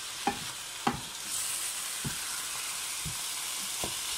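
Spiced minced meat sizzling in a frying pan while it is stirred with a wooden spoon; the spoon knocks against the pan about five times.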